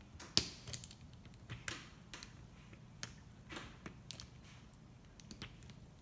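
Flat-blade screwdriver prying at a tack-welded metal tab on a NiCad battery cell: scattered sharp metal clicks and scrapes, the loudest about half a second in.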